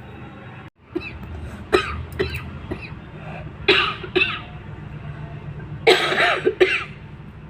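A woman coughing over and over: a run of short coughs, then harder bouts a little before halfway and again near the end.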